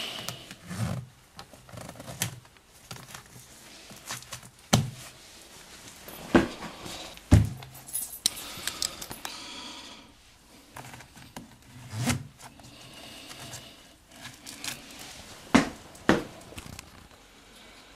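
Handling sounds of putting on a lace-up shoe and moving about a room: soft rustling with several scattered knocks and thumps.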